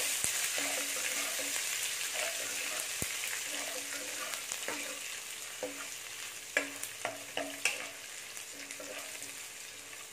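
Chopped ginger and garlic with whole spices sizzling in hot coconut oil in a non-stick kadai, stirred with a steel spoon that scrapes and ticks against the pan now and then. The sizzle is loudest at the start and slowly eases off.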